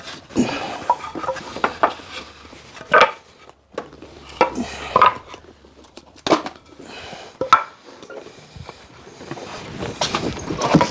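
Cut pieces of timber knocking and clattering as they are handled and tossed up, with a few sharp knocks a second or so apart between quieter rustling and scraping.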